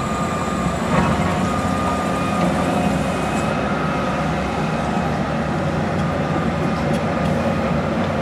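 Hitachi Zaxis 350 LCN excavator working: its diesel engine runs steadily under load with a steady high hydraulic whine as it digs and swings a loaded bucket of soil over a dump truck. A single knock about a second in.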